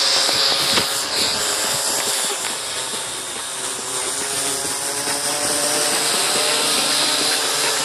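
Syma X8C quadcopter's four electric motors and propellers buzzing steadily in flight, with a high-pitched whine over a rushing hiss.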